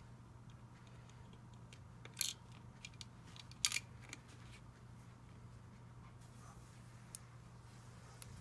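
Small sharp plastic clicks of LEGO pieces being handled and pressed onto a LEGO plate, two louder clicks about two and three and a half seconds in, with a few fainter taps. A faint steady low hum runs underneath.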